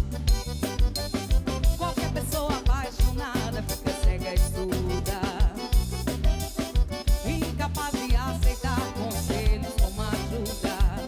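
A live band playing a forró song, with a steady beat of low drum hits about twice a second under a wavering melody line.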